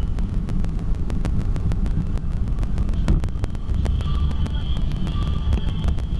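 Car cabin road and engine noise picked up by a dashboard camera while driving: a steady low rumble with many irregular rattling clicks.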